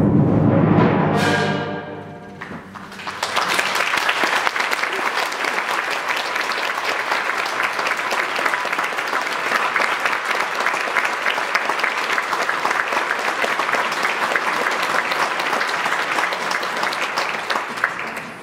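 A youth orchestra's loud final chord dies away in the hall in the first two seconds, then an audience breaks into steady applause about three seconds in, which tails off near the end.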